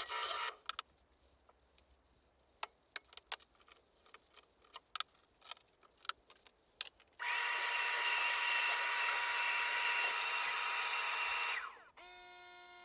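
Electric drill boring holes through baltic birch plywood. It stops just after the start, then a few seconds of scattered clicks and knocks, then it runs steadily again for about four and a half seconds and winds down near the end, leaving a faint steady hum.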